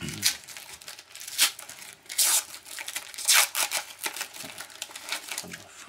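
Foil wrapper of a hockey card pack crinkling and tearing as it is ripped open by hand, in a series of short, sharp rustles.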